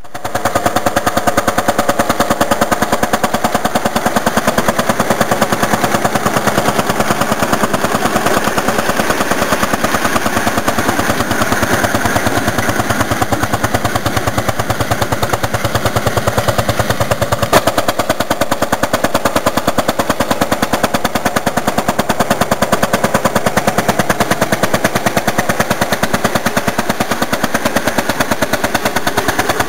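Ursus C-451 tractor's single-cylinder two-stroke hot-bulb engine running under load while pulling a disc harrow, its exhaust a rapid, even pop-pop-pop like a machine gun. One slightly sharper crack sounds about two-thirds of the way through.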